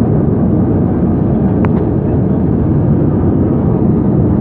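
Airbus A320-212 jet engines and airflow heard from inside the passenger cabin as a loud, steady rush, with a brief click about one and a half seconds in.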